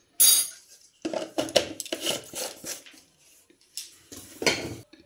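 Small kitchen bowls and a spoon being handled: a sharp clink just after the start, then several clusters of knocks and scrapes of utensils on dishes.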